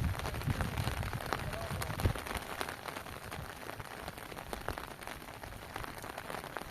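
Heavy rain falling, a dense patter of drops, with a few low thumps in the first two seconds.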